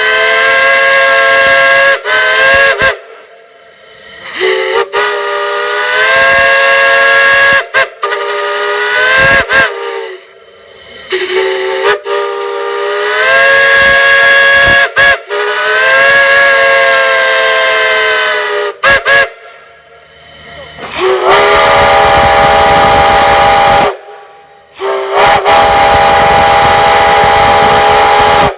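Steam whistle blown in a series of long, loud blasts, each sounding several notes at once, with the pitch sliding up as each blast opens. The last two blasts sound a different set of notes from the earlier ones.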